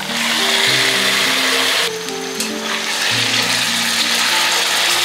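Loud sizzling as yogurt-marinated chicken pieces are tipped into hot oil and fried onions in a pan; the hiss jumps up at once, eases briefly about two seconds in, then carries on. Soft melodic background music plays under it.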